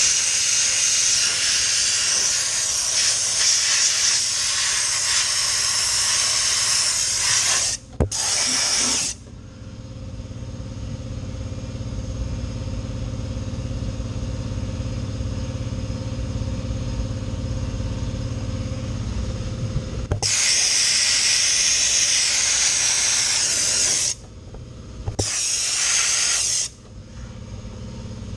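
Dry ice blaster nozzle blasting with a loud hiss, switched on and off: a long blast, a short burst about eight seconds in, another long blast from about twenty seconds, and a short one near the end. In the pauses a steady machine hum is left.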